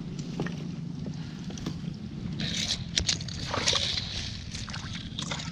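Water sloshing and splashing in the bottom of a boat, scooped with a cut-down plastic jug, in two splashy bursts past the middle, with sharp knocks against the plastic hull.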